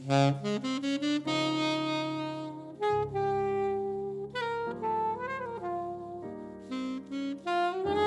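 Alto saxophone playing a slow jazz ballad melody with piano accompaniment. The sax comes in at the start with a quick climbing run of short notes, then holds long notes, one of them wavering in pitch about midway, over low piano chords.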